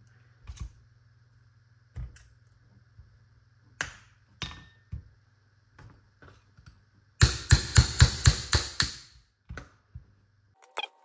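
Small steel gun parts and hand tools clicking and knocking on a rubber bench mat as a double-barrel shotgun's trigger and safety mechanism is taken apart, then a quick run of about eight sharp metal taps, roughly five a second, about seven seconds in.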